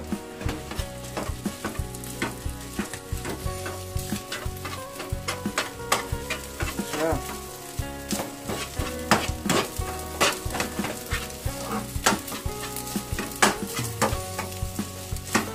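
Metal spatulas scraping and tapping in two nonstick frying pans as cooked rice is stir-fried into scrambled egg in hot oil, with a steady sizzle under frequent sharp clicks from the spatula strikes.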